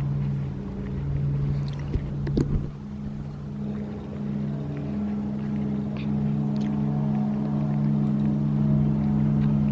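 Boat engine running steadily, a low hum at an unchanging pitch that grows a little louder in the second half, with a couple of brief knocks about two seconds in.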